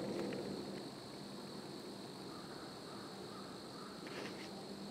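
Quiet woodland background with a faint steady high-pitched hum, a few soft clicks and a brief rustle about four seconds in.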